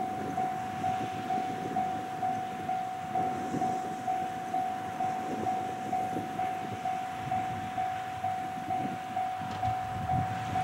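Railway level-crossing warning bell ringing in a steady, even rhythm of about two strikes a second, the signal that a train is approaching. A low rumble sits beneath it.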